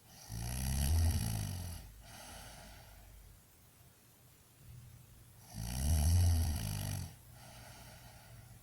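Loud snoring in a slow breathing rhythm: two long snores about five seconds apart, each followed by a shorter, quieter exhale.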